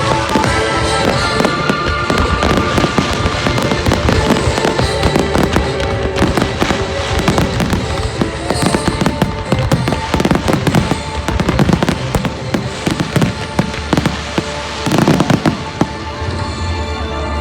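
Fireworks display firing a dense, continuous barrage of bangs and crackles, with music playing underneath.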